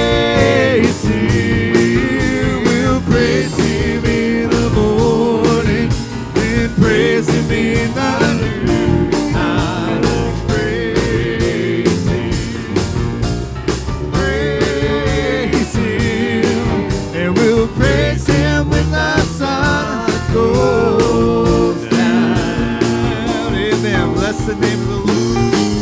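Church worship band playing a song with voices singing, over a steady drum beat.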